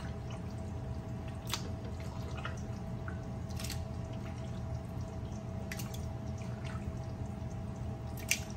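Raw chicken pieces being laid by hand into a large pot of hot curry sauce: a few scattered soft wet plops and pops, the last one near the end the loudest, over a steady low rumble.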